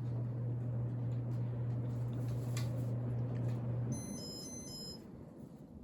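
Casablanca Panama ceiling fan motor humming steadily on speed 6; about four seconds in the hum cuts off and the Comfort Touch receiver gives a quick run of short high beeps of several pitches, then the motor hum comes back at the very end as the fan is switched to reverse.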